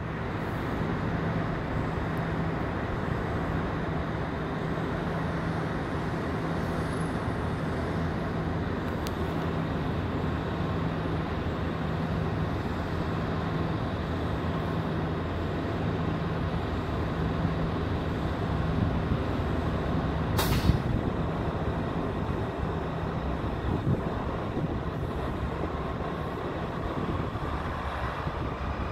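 Diesel locomotives of a Norfolk Southern intermodal freight train running as the train slows on approach: a steady engine rumble with a low hum that comes and goes. One short sharp knock about twenty seconds in.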